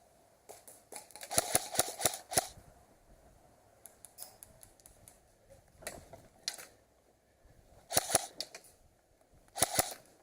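Airsoft guns firing in quick bursts of sharp, snapping shots. A longer burst comes about a second in, and shorter bursts follow around the middle and twice near the end.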